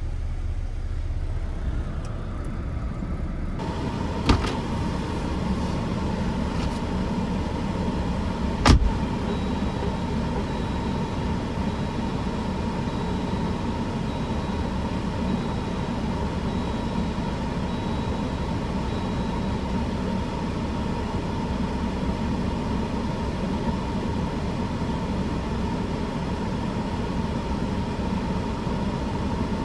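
Steady running noise inside an idling vehicle's cab: the engine and the heater fan. About three and a half seconds in, the sound changes abruptly, gaining more hiss and a steady whine. Two sharp clicks follow, a few seconds apart.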